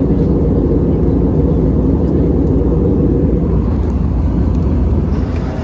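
Airliner cabin noise: a steady, loud low rumble of the plane in flight or on its takeoff run, heard from inside the cabin.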